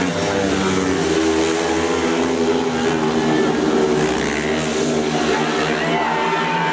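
Speedway motorcycles' single-cylinder engines racing round a shale oval, their pitch wavering up and down as the riders go through the bends and onto the straight.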